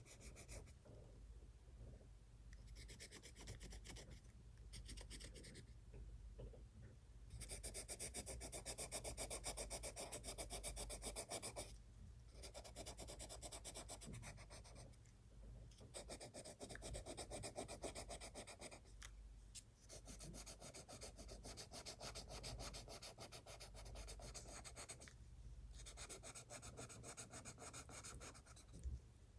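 Colored pencil shading on sketchbook paper: spells of quick back-and-forth scratchy strokes broken by short pauses, the loudest spell about eight to eleven seconds in.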